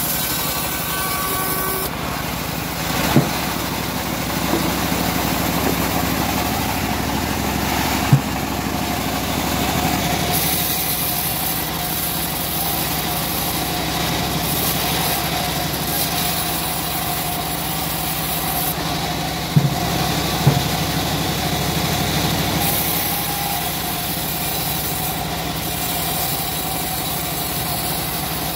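Homemade engine-driven bandsaw running steadily as its blade rips through a short teak log. A few sharp knocks come through, twice close together in the second half.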